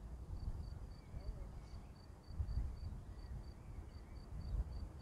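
A gusty low rumble of wind buffeting the microphone, with the strongest gusts about halfway through and near the end. Over it, an insect chirps steadily, a short high note about four times a second.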